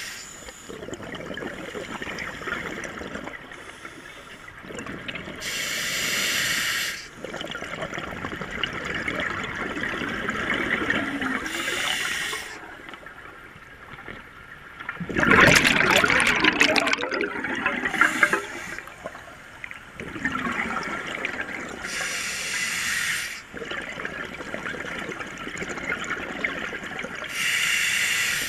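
Scuba regulator breathing underwater: a short hiss of inhaled air about every five or six seconds, alternating with the bubbling of exhaled air. The loudest exhale comes about halfway through.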